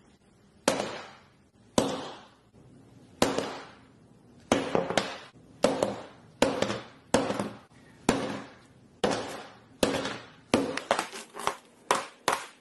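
A hammer striking a Samsung Galaxy S10 Plus again and again, cracking and shattering its glass screen: sharp blows a second or more apart at first, coming faster, a few a second, near the end.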